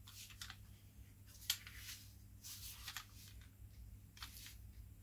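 Faint handling noise: gloved hands turning a plastic-bodied cordless ratchet over, giving scattered light rustles and small scratchy taps, over a low steady hum.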